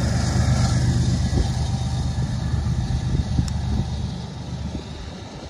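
A BNSF diesel-electric locomotive working as the rear distributed-power unit of a grain train runs with a steady low engine rumble that fades as it moves away.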